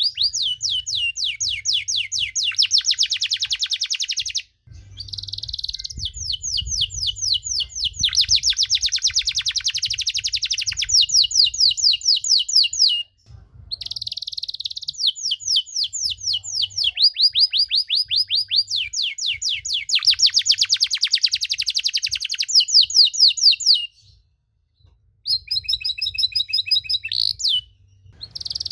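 Domestic canary singing a long song of rapid trilled phrases, each made of fast repeated notes that change speed and pitch from phrase to phrase, with short pauses about four, thirteen and twenty-four seconds in.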